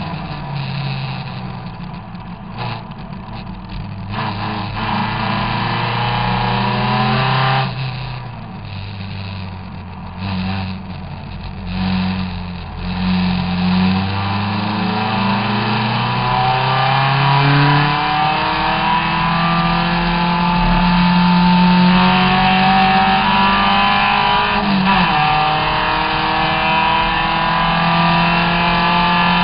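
Triumph TR3S Tribute race car's engine heard on board at racing speed, easing and picking up several times in the first half. Its pitch then climbs steadily under acceleration and drops sharply at an upshift about 25 seconds in before rising again, with a steady rush of wind in the open cockpit.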